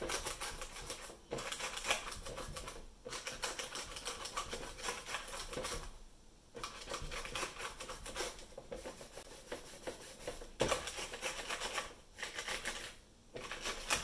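Damp melamine foam (magic eraser) scrubbed back and forth over a keyboard's plastic plate and its exposed Alps switch stems: a rapid scratchy rubbing full of small clicks, in runs of quick strokes with short pauses.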